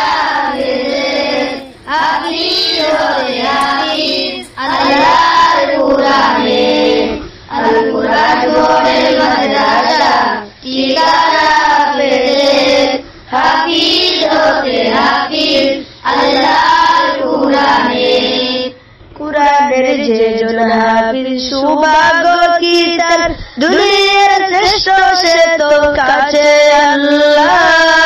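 Young voices singing together, a Bengali Islamic gojol, in sung phrases of a couple of seconds with short breaks between. About two-thirds of the way through the singing turns to slower, longer held notes that waver up and down.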